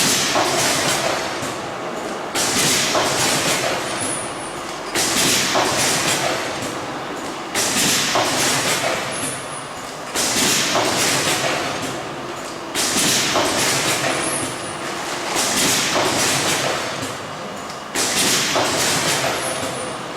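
Automatic packaging machine running through its cycle: a sudden rush of noise starts about every two and a half seconds and fades away before the next one, eight times over, with a faint high chirp every second cycle.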